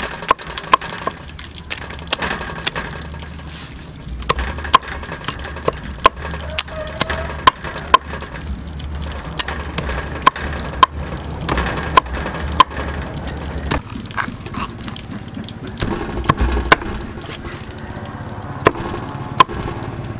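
Cleaver chopping crispy deep-fried cow intestine on a thick wooden chopping block: sharp knocks, about one to two a second, with a pause of a few seconds about three-quarters through.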